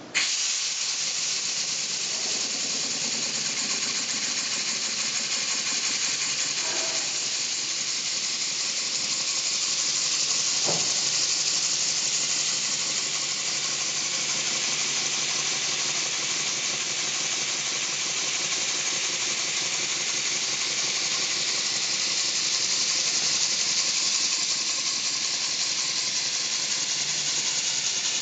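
Home-built model horizontal single-cylinder steam engine running on compressed air, cutting in suddenly as the supply valve is opened and then running steadily with a loud, even hiss of exhaust air.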